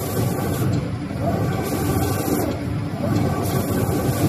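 Automatic spray-painting machine for wood cabinet panels running: a steady rumble and hum from the booth and conveyor, with the spray guns hissing in repeated bursts of under a second, about every two seconds, as the gun carriage sweeps across the panels.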